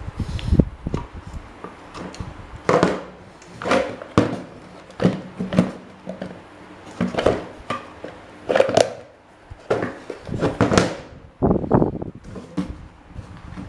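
Irregular knocks, taps and scrapes of metal parts being handled and worked on by hand, about one a second.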